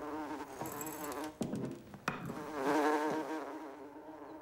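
Housefly buzzing in flight, its droning wingbeat wavering in pitch and growing louder for a moment about halfway through as it passes close. Two sharp clicks come in the first half.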